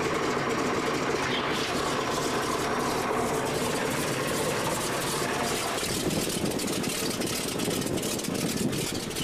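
Light aircraft's piston engine and propeller running at low power, heard from the cockpit; the sound shifts about six seconds in.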